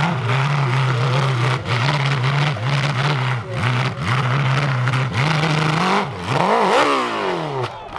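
Racing engine running hard at high revs, its note dipping briefly about once a second as if shifting or lifting off the throttle, then climbing near the end and falling away sharply.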